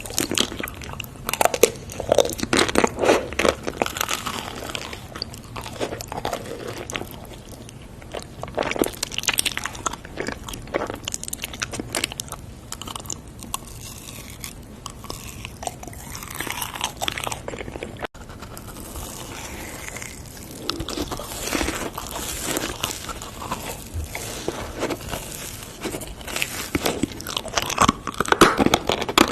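A person biting into and chewing crunchy food, with irregular crunches all through.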